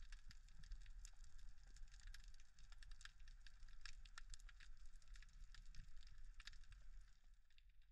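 Faint underwater reef ambience: dense, irregular crackling and clicking over a low rumble of moving water.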